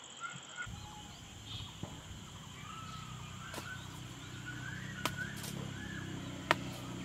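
Small birds chirping in short, scattered calls over a steady faint hiss. A low hum comes in underneath about half a second in, and a few sharp clicks sound in the second half, the loudest near the end.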